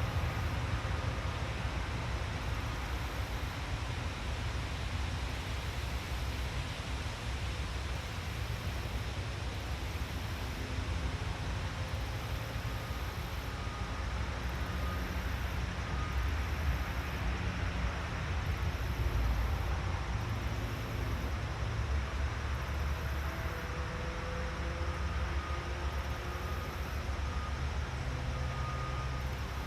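Steady outdoor ambience: a continuous low rumble and hiss with no distinct events, and faint tones that come and go.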